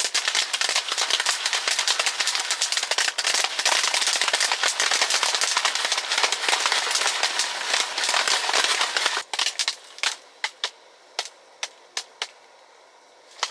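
Food sizzling and spattering over a very hot fire: a dense, loud crackle of pops that drops off abruptly about nine seconds in, leaving scattered single pops.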